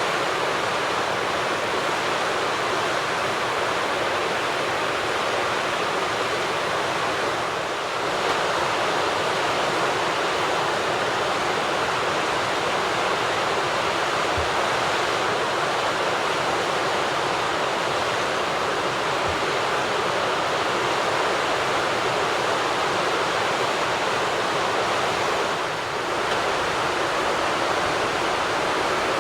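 Steady rushing of flowing water, an even hiss with no birdsong standing out.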